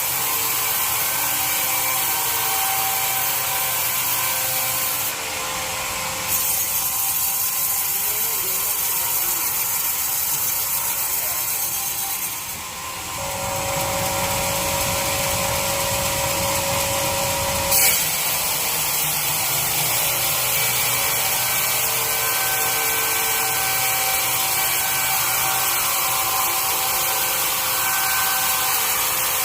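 Sawmill bandsaw running and cutting through a teak log, a steady, loud hiss of the blade in the wood. A lower hum joins in partway through, and it ends with a single sharp knock.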